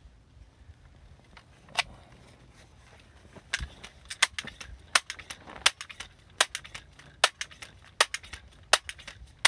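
Gamo M4 TAC .177 multi-pump pellet rifle being pump-charged for a 10-pump shot. The pump lever gives a sharp clack about every three-quarters of a second, with lighter clicks between the strokes.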